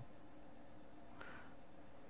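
Quiet room tone with a faint steady hum, and one faint, brief handling sound about a second in as fingers take hold of the watch movement in its holder.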